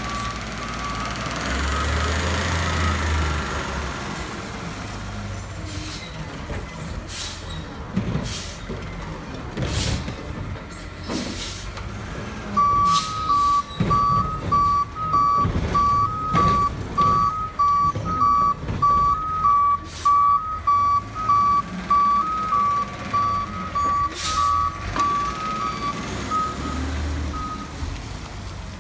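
Heil front-loader garbage truck: its diesel engine runs throughout, swelling briefly in the first few seconds, and its air brakes give several short hisses. In the second half its reverse alarm beeps steadily at about one and a half beeps a second for some thirteen seconds.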